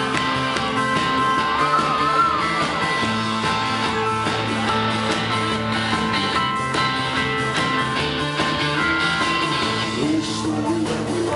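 Rock band playing an instrumental stretch without lyrics: guitar lines over bass and drums.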